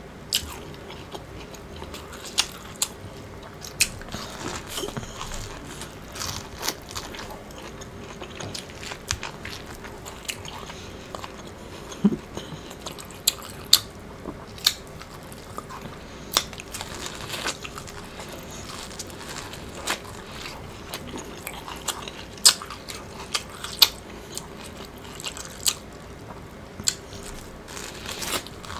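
Biting kernels off a cob of Mexican street corn (elote) and chewing them, with irregular sharp crunches scattered through the chewing.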